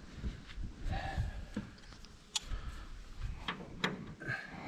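Sparse light clicks and taps, a few sharp ones about a second apart, over faint background noise.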